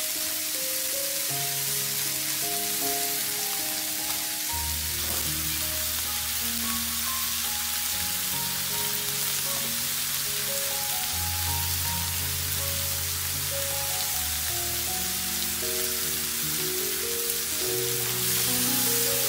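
Vegetables and meat sizzling steadily in a frying pan, under background music whose bass line comes in about four seconds in.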